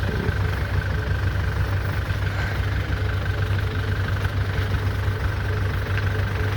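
Diesel engine of rice-harvest farm machinery running steadily, a low hum with a faint thin whine above it.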